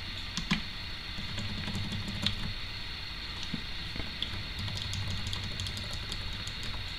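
Typing on a computer keyboard: light key clicks, scattered at first and coming quicker in the second half, over a steady background hum.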